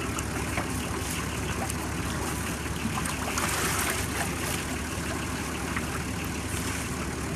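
Engine of the clay-mixing machinery running steadily, with a splashy pour of wet clay slip from a bucket about three to four seconds in.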